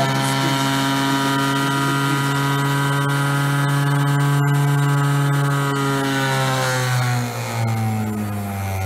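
DC motor spinning a balanced disc on a shaft in a bearing test rig, running at about 8,000 rpm with a steady high whine. About six or seven seconds in, the whine starts falling in pitch as the speed controller is turned down and the rotor winds down.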